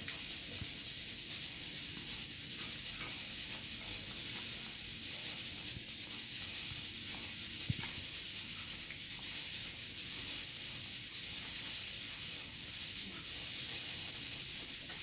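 A cat lapping and licking a soft, wet cereal paste off a plastic plate: faint, irregular small licking sounds over a steady hiss, with one sharp click about eight seconds in.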